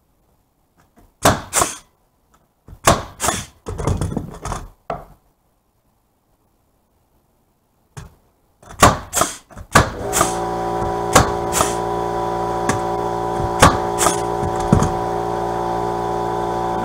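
Pneumatic framing nailer firing nails into wood, several sharp bangs in two groups with knocks of the boards. About ten seconds in, the air compressor feeding the nailer starts and runs steadily with a hum, while wood blocks are knocked about.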